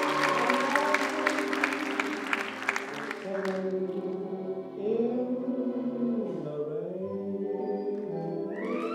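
Performance music with singing: a full, busy passage for the first few seconds, then a thinner stretch of held notes with a sliding vocal line, filling out again near the end.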